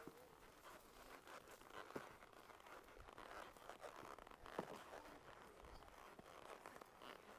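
Faint rustling with a few scattered soft knocks from a horse walking on a wooded trail, heard from the saddle.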